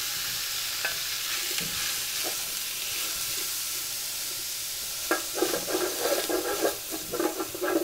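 Beef chunks sizzling with a steady hiss as they begin to fry in a large, hot metal pot, stirred with a wooden spoon; from about five seconds in the spoon scrapes and knocks against the pot more loudly.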